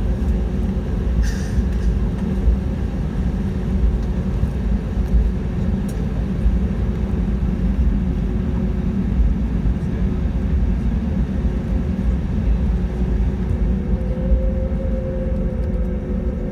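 Cabin noise inside an Airbus A320neo on the ground before takeoff: a steady low rumble with the Pratt & Whitney PW1100G engines at idle, and a constant hum. A second, higher steady tone joins near the end.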